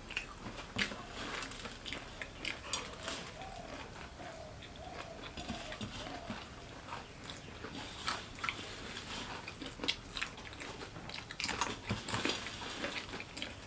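Mouths crunching and chewing dry, crisp fried namkeen snacks such as bhujia, in irregular crackly crunches.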